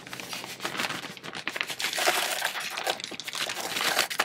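Plastic bag crinkling and rustling as thawed frozen dubia roaches are tipped out of it into a plastic tub, with a dense run of small crackles and ticks.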